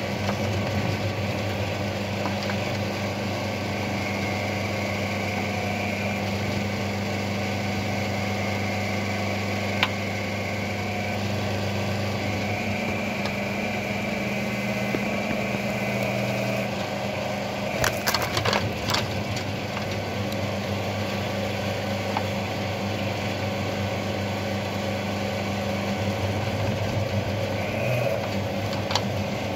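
Homemade electric mini excavator's hydraulic drive humming steadily as its root-ripper tooth tears at tree-stump roots in the soil. A cluster of sharp cracks comes a little past halfway.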